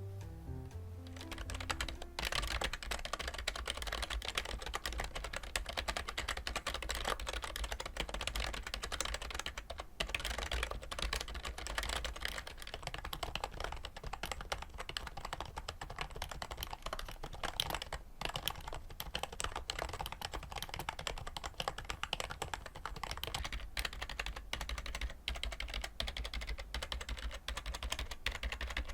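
Fast, continuous typing on a cheap Daiso membrane keyboard, a dense run of soft key clacks. The typing begins about two seconds in, as a short tail of music fades out.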